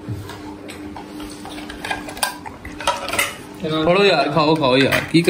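Spoons clinking and scraping on plates as people eat, a few short clicks over a steady low hum. Near the end a man's voice comes in, drawn out and wavering, louder than the cutlery.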